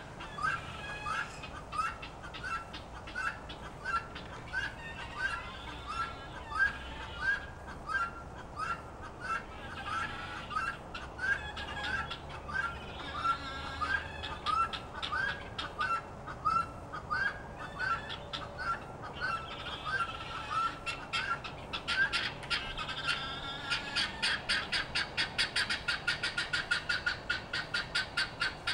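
Guinea fowl calling: a steady series of short, repeated two-note calls, about one and a half a second, that breaks into a fast rattling chatter over the last few seconds.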